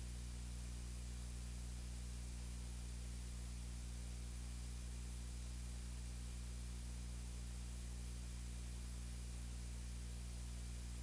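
Steady low electrical hum with a ladder of overtones under a constant hiss, unchanging throughout; no speech is heard.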